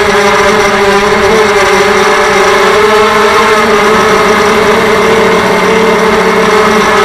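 Electric motors and propellers of a TBS Gemini FPV multirotor drone in flight, heard through its onboard camera: a loud, steady buzzing whine that rises slightly in pitch about three seconds in.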